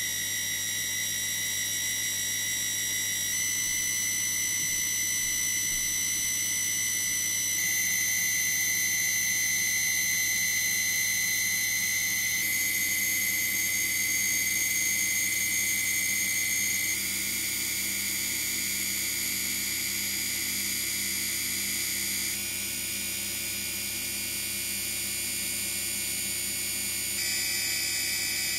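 A series-wound DC motor under full PWM regenerative braking, charging a supercapacitor bank, gives a steady high-pitched whine. The whine shifts in pitch abruptly several times, and a fast low ticking runs under it for the first half. As the capacitor voltage climbs, the braking effect eases and the motor RPM rises.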